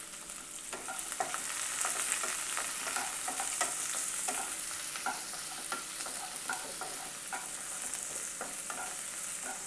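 Chopped onion and capsicum sizzling in hot coconut oil in a kadai over a high gas flame. They are being stirred, with many small clicks against the pan. The sizzle grows a little louder over the first couple of seconds.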